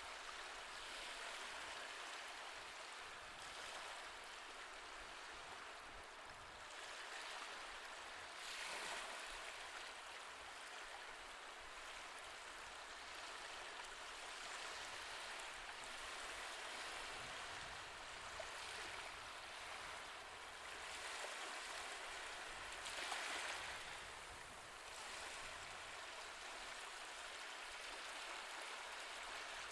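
Soft, steady ocean surf, waves washing in with gentle swells about eight seconds in and again around twenty-three seconds.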